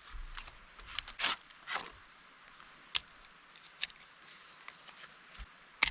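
Plastic MRE food packets crinkling and rustling as they are handled and torn open, with scattered short crackles and a sharp snap near the end.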